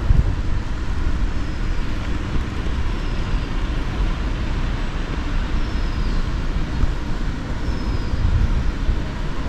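Steady outdoor background rumble, swelling briefly near the start and again near the end, with a faint short high chirp every second or two.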